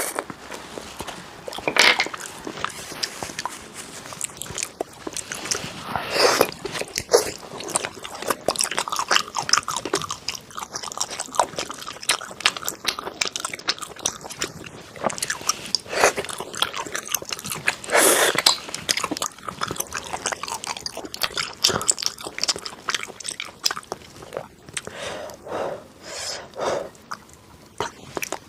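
A person eating close to the microphone: biting and chewing food, with many small sharp wet clicks from the mouth and a few louder bursts along the way.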